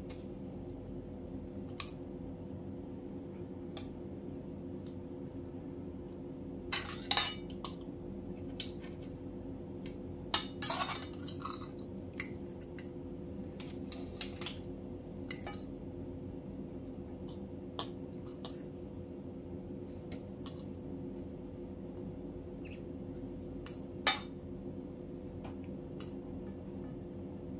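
Knife and fork clinking and scraping on a plate as the skin is peeled off grilled eggplants: scattered light taps, with a few sharper clinks. A steady low hum runs underneath.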